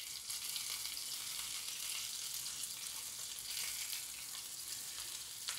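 Semolina-coated sardines sizzling steadily in shallow oil in a nonstick frying pan while they are turned over with a fork, with one light click near the end.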